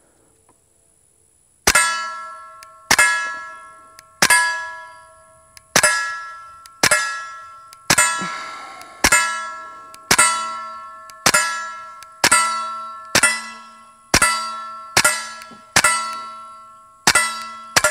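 Suppressed KelTec P17 .22 LR pistol fired steadily at steel plates with subsonic rounds: about fifteen shots roughly a second apart, each answered by a steel plate ringing out with a clang that fades away before the next.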